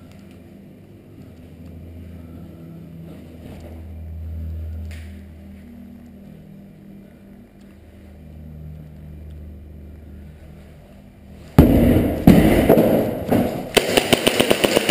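A low rumble at first, then about eleven and a half seconds in a sudden loud run of sharp cracks and clatter, with a quick string of snaps near the end: close-range airsoft gunfire in a room.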